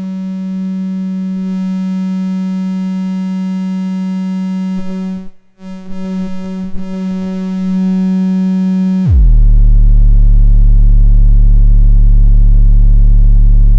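SOMA Lyra-8 analog drone synthesizer with two voices cross-modulating each other. It holds a steady buzzing drone full of overtones, which cuts out briefly about halfway through. About nine seconds in it drops suddenly into a much louder, very deep bass drone.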